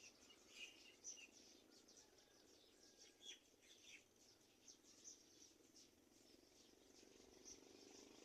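Faint, short, high-pitched bird chirps, many and irregular, over a low steady background hum.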